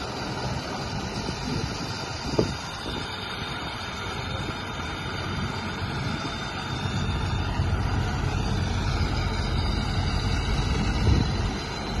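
John Deere 5410 tractor's diesel engine working under load as it pulls a stuck combine harvester out on a tow line, with the machinery running steadily. The low engine rumble grows louder about seven seconds in, and there is a single short knock a little past two seconds in.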